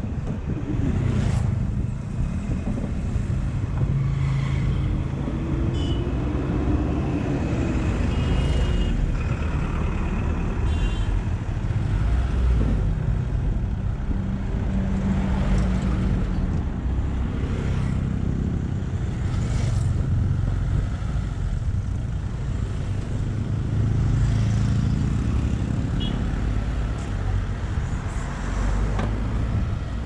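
Engine of a small Mahindra dump truck running as it drives slowly, its pitch rising and falling with the throttle, over the noise of road traffic.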